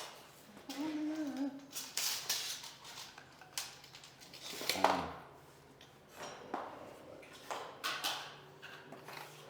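Scattered clacks and knocks of vinyl click-lock planks being handled and set into place, the loudest knock just before the middle, with a brief hummed voice about a second in.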